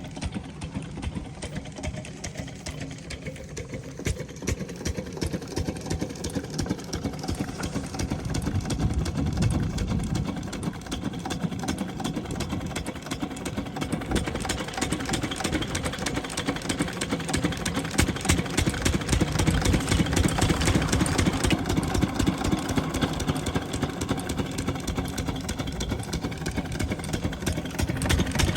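12 hp diesel water-pump engine running steadily with rapid, even firing pulses, getting somewhat louder partway through.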